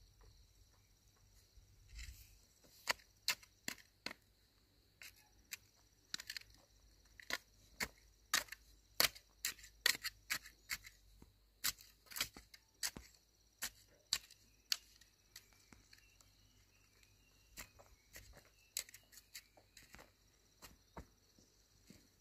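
A run of sharp knocks at irregular spacing, about two a second for roughly twelve seconds from two seconds in, then fewer and fainter, over a faint steady high-pitched hum.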